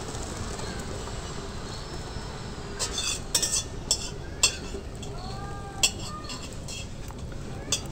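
Scattered sharp clinks and clicks over a steady background hiss, with a few short rising-and-falling chirps around the middle.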